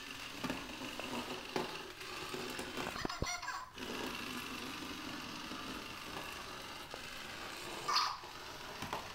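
Zhu Zhu Pets battery-powered toy hamster running across a tile floor: a steady small-motor whir with scattered clicks, a clattering stretch about three seconds in, and a brief squeak near the end.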